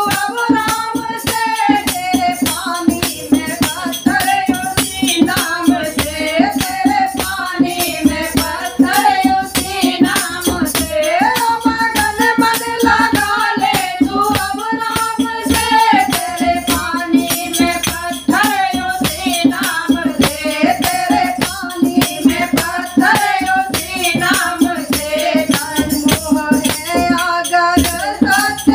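Women's voices singing a Hindi devotional bhajan together, in one sustained line, over steady hand drumming on a dholak. Small hand cymbals and a rattle keep up a dense jingling beat throughout.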